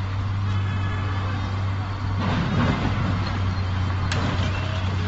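Diesel forklift engine running steadily under load as it shoves a car, with a short noisy burst about two seconds in and a sharp knock about four seconds in.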